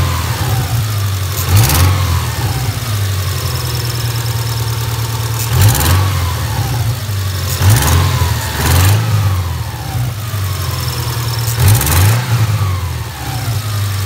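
2000 Subaru Outback's flat-four engine idling, with the throttle blipped about five times so the revs rise and fall back each time. It is being revved to bring out a lifter tick that the owner blames on sticking lifters.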